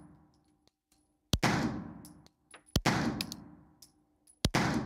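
Stoeger STR-9S Combat 9mm pistol fired three times, about a second and a half apart. Each shot is followed by a long echo in the enclosed indoor range.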